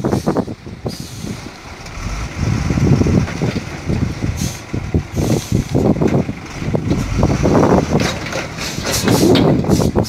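Dump truck's diesel engine running under load, surging up and down, as the hydraulic tipper holds the bed raised and a load of earth slides out of the tipped body.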